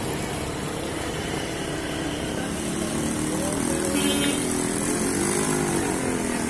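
Motorcycle engines and street traffic, a steady noise with a pitched note that rises and falls in the middle and a brief high-pitched tone about four seconds in.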